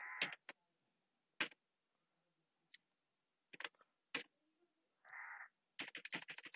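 Computer keyboard keys clicking: a few scattered keystrokes, then a quick run of them near the end. A short soft hiss comes right at the start and another about five seconds in.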